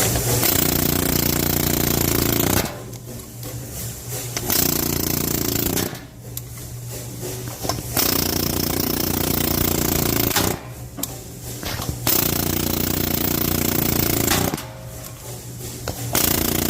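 Pneumatic air hammer with a valve-guide driver hammering the old valve guides out of a Toyota 3VZ-E cylinder head. It runs in five stretches of two to three seconds each, with short pauses between.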